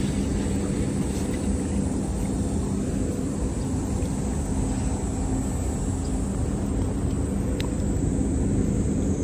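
A steady low mechanical drone with a constant hum that does not change. A single sharp click sounds near the end.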